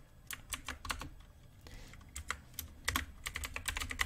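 Typing on a computer keyboard: quick, irregular key clicks, with a short pause about halfway through.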